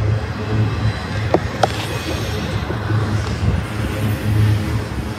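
Intermodal freight train with truck trailers on flatcars rolling past close by, its steel wheels rumbling steadily on the rails. Two sharp clicks come close together about a second and a half in.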